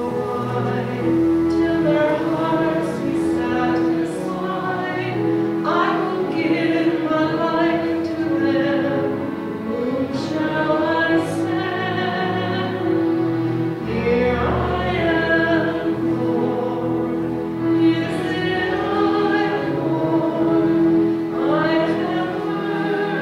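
A hymn sung by voices with vibrato over an accompaniment of long, steadily held notes.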